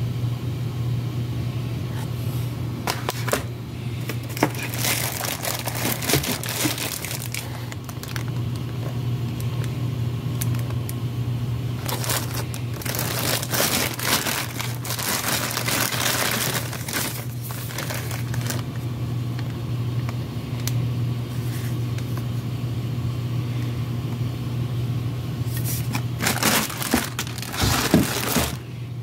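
Plastic bag crinkling and rustling as gift items are handled in a cardboard box, in three spells, over a steady low hum.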